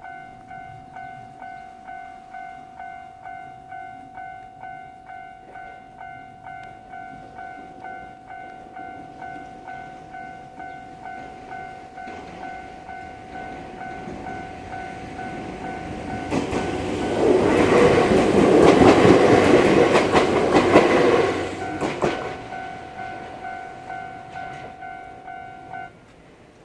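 Japanese level-crossing warning bell ringing in a steady two-tone pulse, about one and a half strikes a second, while a two-car Ryutetsu 5000-series electric train passes. The train grows loud about 16 seconds in and clatters over the rail joints for about five seconds before fading. The bell stops shortly before the end.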